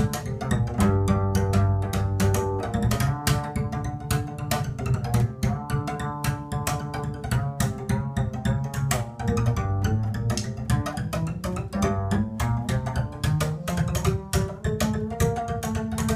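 Double bass played as a drum: drumsticks beat a fast, steady pattern of clicks on its strings while the bassist frets a changing jazz bass line.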